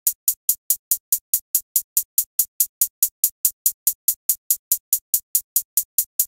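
Programmed closed hi-hat sample playing on its own in a steady run of short, crisp ticks, about five a second.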